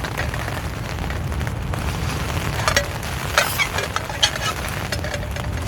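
Steady low wind rumble on the microphone, with a few sharp clicks and crackles in the middle from mince frying in a pan on a camp stove.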